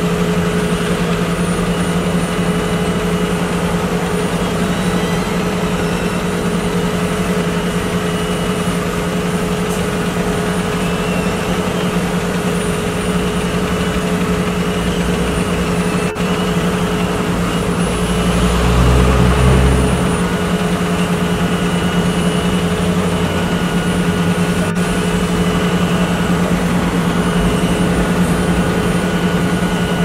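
Volvo tracked asphalt paver's diesel engine running steadily while laying tarmac, a constant hum with a heavier low rumble swelling briefly about two-thirds of the way through.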